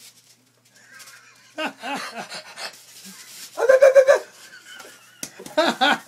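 Wordless, pitched vocal sounds: a run of wavering, laughter-like calls about a second and a half in, then a louder high-pitched cry near the middle.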